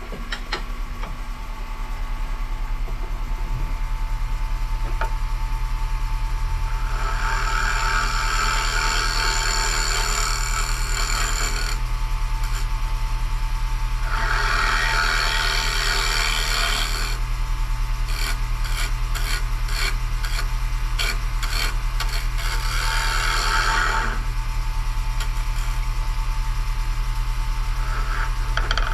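Wood lathe running steadily with its motor humming, while a carbide turning tool scrapes into the spinning maple bowl in several passes of a few seconds each, hollowing it out.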